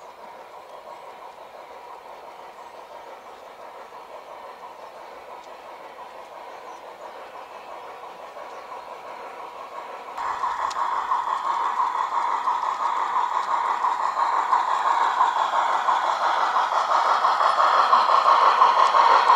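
Garden-railway model of steam locomotive 99 222 and its train of ballast hopper wagons running along the track toward the listener, growing steadily louder as it approaches. The sound steps up suddenly in loudness about ten seconds in.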